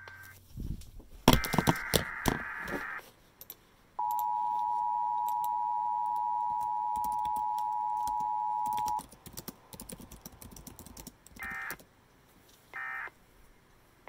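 Emergency Alert System required weekly test heard through a weather radio's speaker tuned to an AM station. It opens with a few clicks and a short burst of buzzing digital header data. About four seconds in comes the steady two-tone attention signal, held for about five seconds, and it ends with three short end-of-message data bursts about a second apart.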